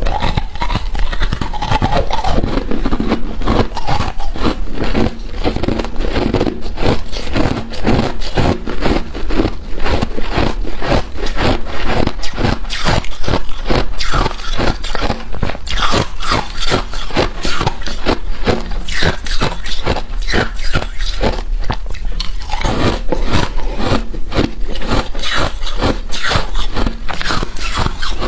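Close-miked crunching of freezer frost: a dense, unbroken run of crunches, several a second.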